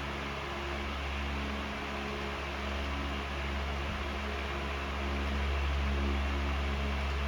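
Frigid 16-inch double oscillation table fan, not yet cleaned or oiled, running on high speed: a steady rush of moving air over a low, even motor hum. It grows slightly louder about five seconds in.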